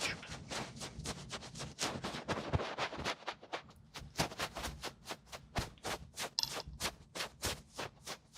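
Close-miked ASMR trigger sounds: a fast, uneven run of crisp clicks and taps, about five or six a second.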